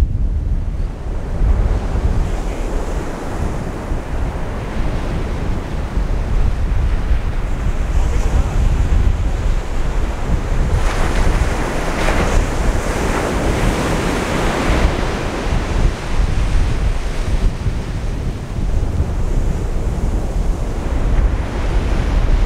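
Ocean surf washing on the beach under heavy wind buffeting the microphone, with a wave surging louder about halfway through.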